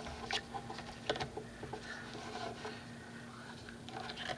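Sheets of paper rustling and sliding as they are shifted and laid in place by hand, with a few soft taps.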